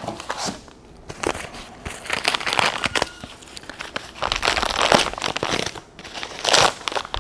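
Brown packing paper and tape being torn and crumpled by hand while a small wrapped bundle is unwrapped: irregular crinkling and crackling, louder about five seconds in and again near the end.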